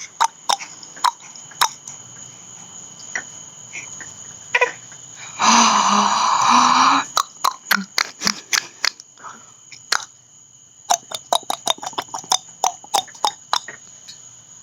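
Sharp clicking sounds repeated irregularly, in quick runs near the start and again in the second half. About five seconds in, a loud burst of laughter lasts a couple of seconds.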